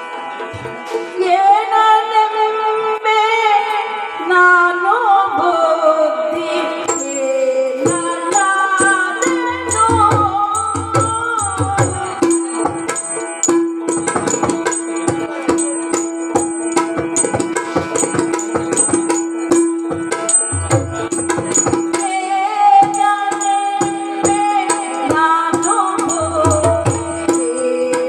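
Yakshagana song: a vocalist sings sliding melodic lines over a steady drone, accompanied by hand-played maddale and chende drum strokes, with deep drum booms now and then.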